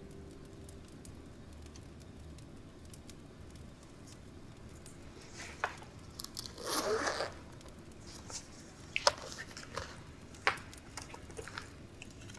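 Faint handling sounds: scattered small clicks and taps, with a short crinkling rustle about halfway through, as things are rummaged through and a photograph is handled.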